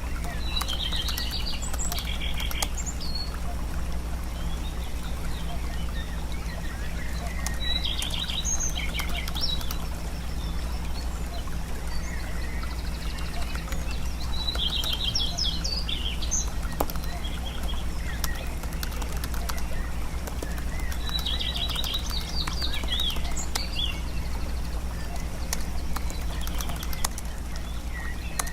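Steady low hum of home ambience, with a bird's short high chirping phrase coming back about every seven seconds, four times in all, and a few faint clicks.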